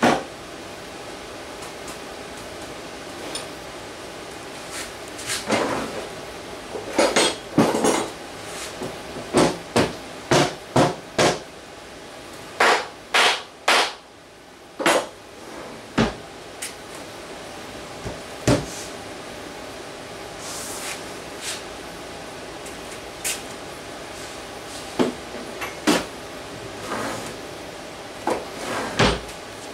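Irregular sharp knocks, taps and clatter of hand work on a wooden box at a workbench, as parts and tools are struck, set down and handled, coming in uneven clusters.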